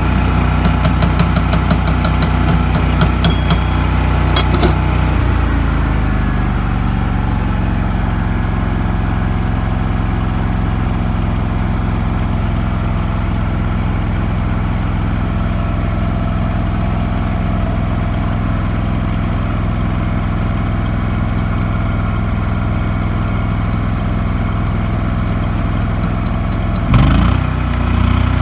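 Engine-driven welder running at welding speed with the fast crackle of a stick-welding arc for about the first five seconds. When the arc stops, the engine slows to a steady idle. Near the end it revs back up with a short sudden burst of noise.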